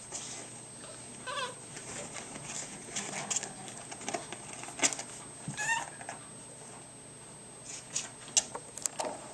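Pug puppies whimpering: two short, high squeaky whines, one about a second in and a wavering one near the middle, with scattered scratching and clicking as a puppy digs in the cardboard box of wood-pellet litter.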